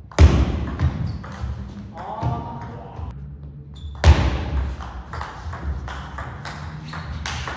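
Table tennis ball clicking rapidly off the bats and the table during a fast rally, with two much louder, sharper hits that ring out in the hall.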